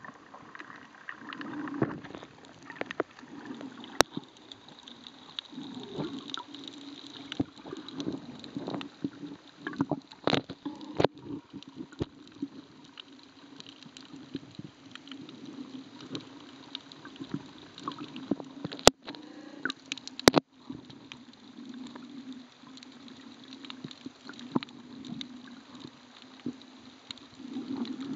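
Muffled underwater sound from a camera held below the surface: a steady low watery rumble with faint crackling and a few sharp clicks, the two loudest close together past the middle.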